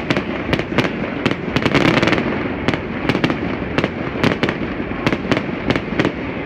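Low-altitude aerial fireworks going off in a rapid, irregular barrage, about three sharp bangs a second, their powerful reports echoing between the city buildings over a steady background din.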